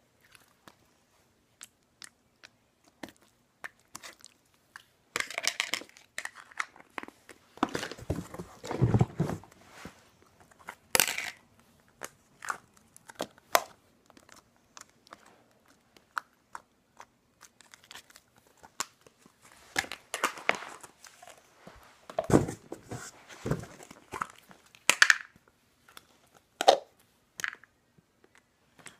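Slime being stretched and poked by hand: irregular clusters of short crackles and clicks with quiet gaps between.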